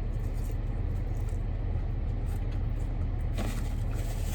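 Steady low rumble of a car heard from inside the cabin, its engine idling. A brief faint sound about three and a half seconds in.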